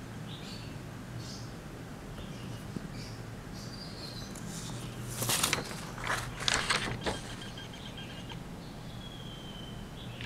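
Rustling handling noise in a few loud, noisy bursts about five to seven seconds in, as the camera is moved over paper, over a steady low hum. A few faint, short, high chirps come before the bursts.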